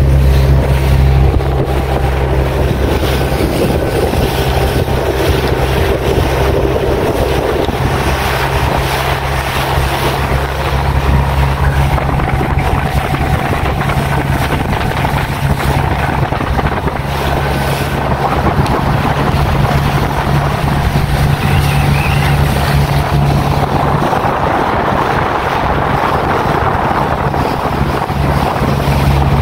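A small open boat's motor running steadily underway, with wind buffeting the microphone and water rushing past the hull.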